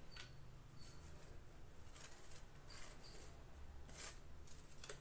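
Faint rasping strokes of raw beetroot being grated on a stainless steel hand grater, coming irregularly every half second to a second.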